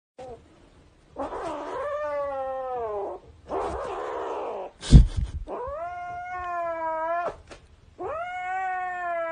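Kitten yowling in four long, drawn-out calls that sag slightly in pitch, the second one rough and hissy, while it clutches a plush toy that a hand is tugging at. A loud thump about five seconds in.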